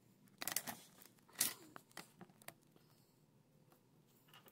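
Short rustling and clicking handling noises, in two louder bursts about half a second and a second and a half in, followed by a few faint ticks.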